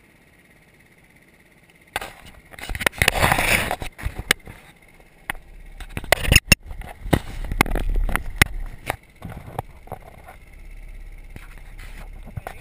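Handling noise of an action camera being fixed to a scooter's mirror stem. After a couple of seconds there is a rustle of rubbing, then a run of sharp clicks and knocks against the camera.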